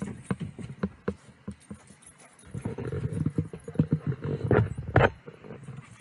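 Chesapeake Bay retriever making rough, breathy noises close to the microphone, loudest from about halfway through until near the end, among scattered clicks and knocks.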